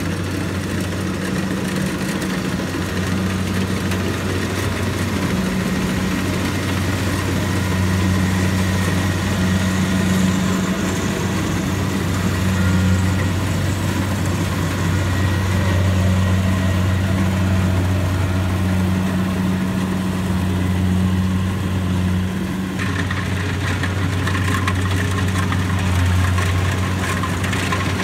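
Kubota rice combine harvester's diesel engine running steadily under load while it harvests, a continuous low drone. Its tone shifts about three-quarters of the way through as the machine draws nearer.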